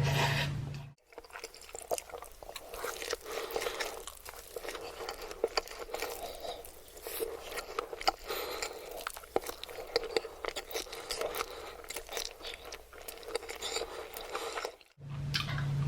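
Close-miked mukbang eating: chewing with many small crunches and wet clicking mouth sounds.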